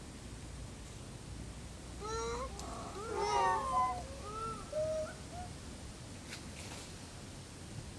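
Rhesus macaques calling: a run of short, gliding coo-like calls, several overlapping, starting about two seconds in and lasting about three seconds.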